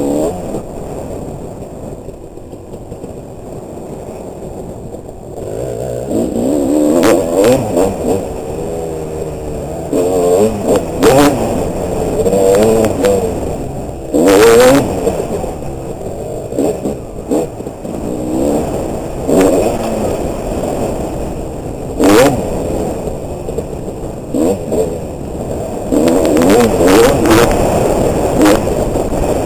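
Dirt bike engine being ridden hard, revving up and dropping back over and over as the throttle is worked. It runs lower for the first few seconds, then the rises and falls in pitch come every second or two, with a few sharp knocks.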